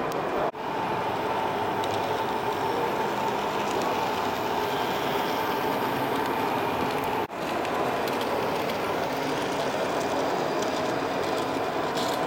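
Steady running noise of model trains and trams on an exhibition layout, mixed with hall background noise; the sound dips for a moment twice.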